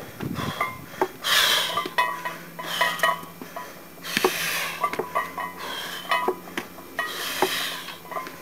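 Iron plates on a 155 lb barbell clinking and rattling with each step-up onto a wooden step box, many short metallic clicks, with a heavy hissing breath about every three seconds.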